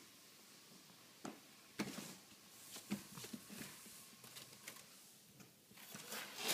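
Scattered soft knocks and scuffs of a toddler crawling under a large cardboard box on a wooden floor, turning into denser crackly rustling near the end.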